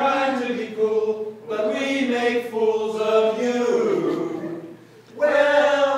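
A small group of four men and a woman singing together, in sung phrases with a short break about four seconds in.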